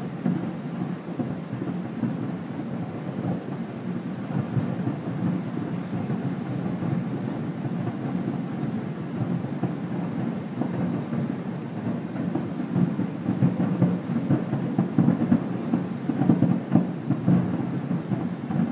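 Distant aerial fireworks shells bursting in rapid succession, their booms running together into a continuous low rumble. The reports grow louder and sharper in the last few seconds.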